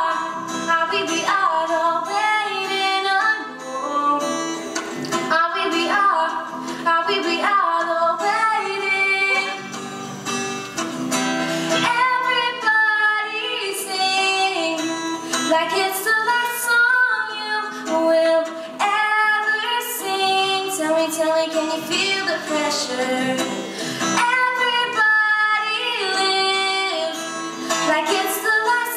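A young female singer singing a song while accompanying herself on guitar.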